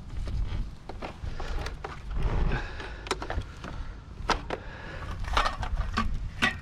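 Irregular knocks, clicks and scrapes of hard objects being moved around and handled in a pile of kerbside rubbish, over a steady low rumble.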